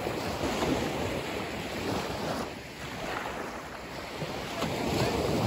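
Small waves breaking and washing up the beach, with wind on the microphone. The surf swells about half a second in and again near the end.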